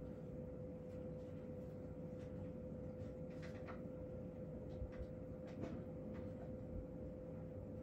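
Quiet room tone: a steady low hum with a faint constant tone, and a few soft clicks and taps near the middle.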